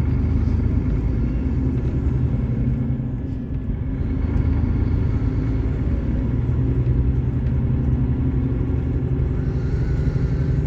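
Volvo D13 thirteen-litre inline-six diesel engine of a Volvo 9800 coach running steadily with a deep, low rumble, briefly easing off about three and a half seconds in.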